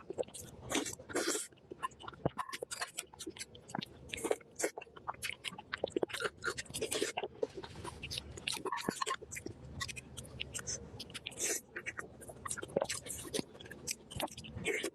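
A person chewing and biting food close to the microphone: irregular crunches and mouth clicks.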